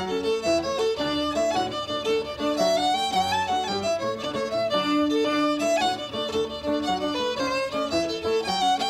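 Recorded Irish traditional music led by a fiddle playing a lively tune in quick runs of short notes over lower sustained notes.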